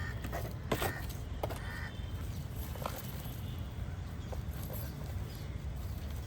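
Garden ambience: a steady low rumble with a few short clicks and rustles.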